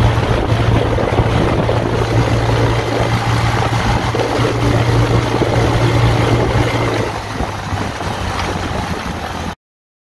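Off-road kart's engine running steadily while driving over a gravel track, with wind buffeting the microphone and the rumble of tyres. The engine eases off about seven seconds in, and the sound cuts off suddenly near the end.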